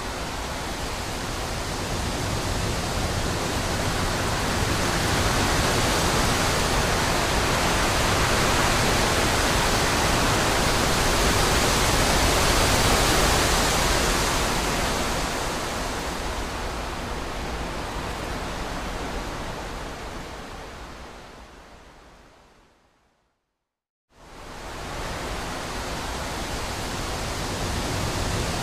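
Wind rushing through trees: a steady, even rush that swells toward the middle, then fades out to silence about 23 seconds in and comes back about a second later.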